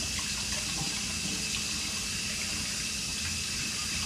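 Kitchen sink faucet running steadily as hands are rinsed under it. The water shuts off abruptly at the very end.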